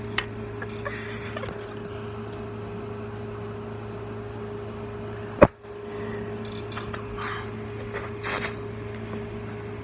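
Steady low mechanical hum of a household appliance in a small room, with faint rustles and taps of a phone being handled and one sharp knock about five and a half seconds in.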